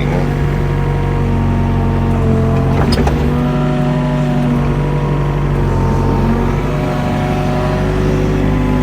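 Mini excavator engine running steadily under digging load, with a single sharp clank about three seconds in.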